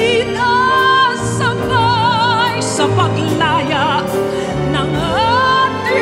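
A woman singing a Tagalog love ballad with a symphony orchestra accompanying her. She holds notes with a wide vibrato, with a rising swoop about five seconds in.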